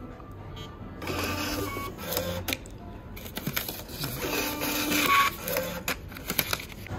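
Receipt printer at a self-service checkout printing a receipt. It runs in two stretches with a short pause about three seconds in.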